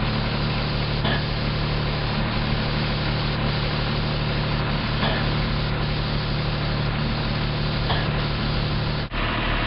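Paint spray gun hissing steadily, over the steady hum of an engine-driven machine running nearby. About nine seconds in the sound breaks off for an instant and the engine hum changes.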